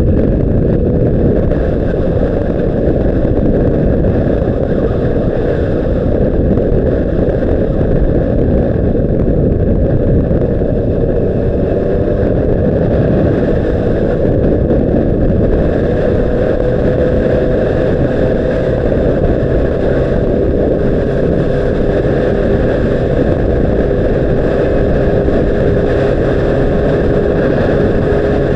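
Heavy wind rush buffeting the microphone of a Honda CBR600RR motorcycle at steady speed, with a faint, even engine tone showing through in the second half.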